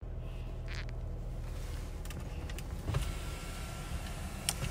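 Car's electric sunroof motor running as the roof panel slides open: a steady low hum, with a couple of light clicks in the second half.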